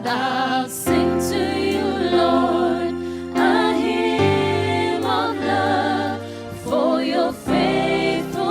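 Gospel worship song: several voices singing with vibrato over held backing chords that change every second or so.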